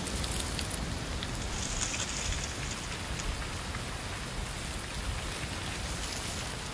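Wind blowing through autumn trees, with dry leaves rustling: a steady, dense hiss with a low rumble underneath.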